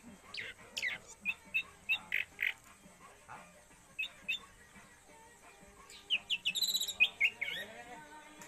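Orange-headed thrush singing in short, broken phrases: single sharp high chirps spaced apart, then a quicker run of chattering notes a little past the middle.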